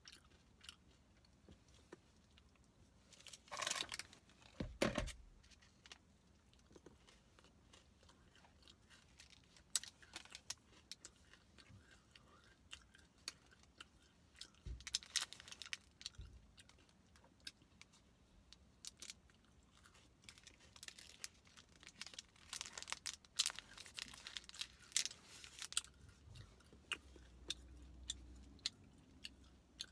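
Close-up, quiet eating sounds: chewing and crunching a foil-wrapped candy bar, with small wet clicks throughout. Two louder stretches of crinkling and rustling, from the foil wrapper being handled, come a few seconds in and again a little past twenty seconds.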